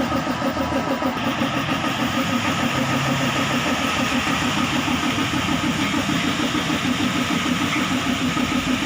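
Mitsubishi 4M40 2.8-litre four-cylinder diesel engine idling steadily with an even, rapid pulsing beat, running after being assembled.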